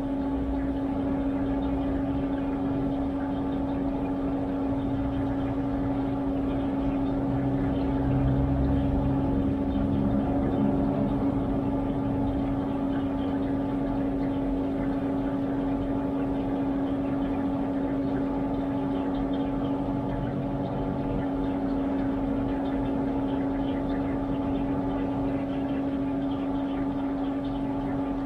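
Washtech UL undercounter commercial dishwasher running its cycle: a steady pump-motor hum with a strong single tone, along with water noise inside the machine.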